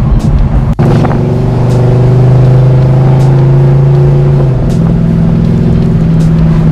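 Oldsmobile Cutlass 442 V8 engine running under way, heard from inside the car's cabin. Its note holds steady, then steps up to a higher pitch about four and a half seconds in.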